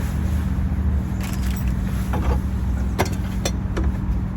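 A steady low engine hum, with half a dozen sharp clicks and knocks over it.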